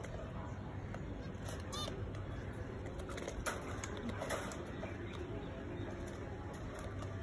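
Soft clicks and taps of steel wire against a wire birdcage as a wire hook is twisted into place by hand, over a low steady background hum. A short pitched call sounds once, about two seconds in.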